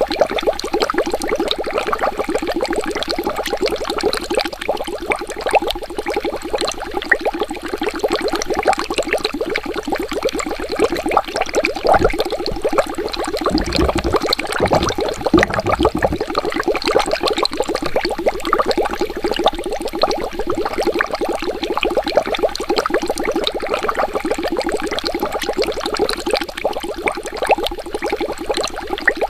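Water bubbling steadily: a dense, even stream of small bubbles popping, with a brief low rumble about halfway through.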